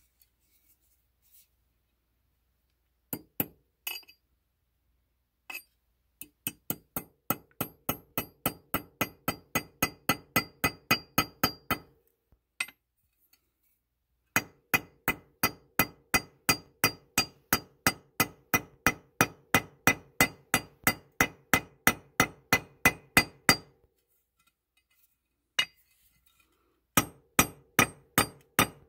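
Ball peen hammer striking a metal wedge into the top of a half hatchet's handle, each blow giving a ringing metal clink. A few lone taps are followed by three fast runs of about three strikes a second, separated by short pauses. The hammering drives the wedge in to lock the head onto the new handle.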